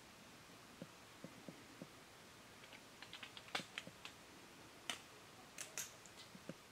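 Faint, irregular clicks and taps over a quiet background, a few soft ones at first and then a scattered run of sharper clicks in the second half.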